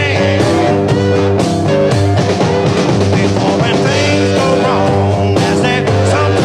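Background rock music, with pitched notes stepping through a melody over a steady bass line.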